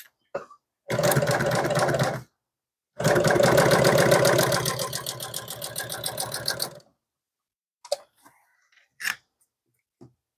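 Juki industrial sewing machine stitching a small folded piece of upholstery material in two runs: a short burst about a second in, then a longer run of about four seconds that eases off before stopping. A few light clicks follow near the end as the threads are snipped with scissors.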